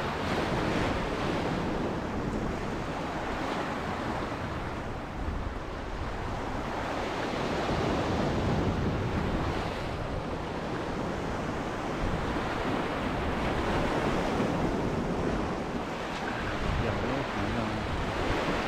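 Sea surf washing and foaming over a rocky shore ledge, a steady rushing wash, with wind buffeting the microphone as a low, uneven rumble.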